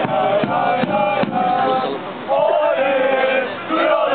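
A crowd of male football supporters chanting a song in unison in loud sung phrases, with a short break about halfway. A bass drum strikes a few times in the first second or so.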